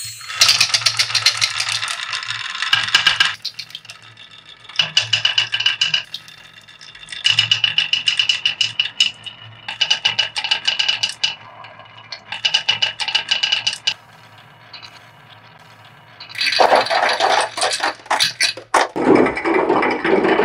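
Marbles rolling and clattering down a wooden serpentine-groove marble run, in runs of rapid clicks with short pauses between. From about 16 seconds in, a louder, denser rattle as they tumble into a clear plastic bottle.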